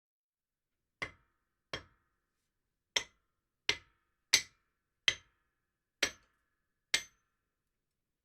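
Hammer blows, eight sharp strikes at an uneven pace of about one a second, each with a brief metallic ring, as in driving nails into timber.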